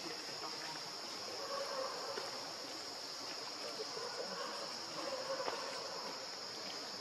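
Steady, high-pitched drone of forest insects, unbroken throughout.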